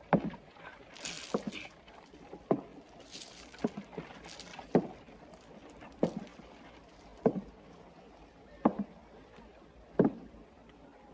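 Slow, deliberate footsteps on wooden floorboards, one heavy step about every second and a quarter.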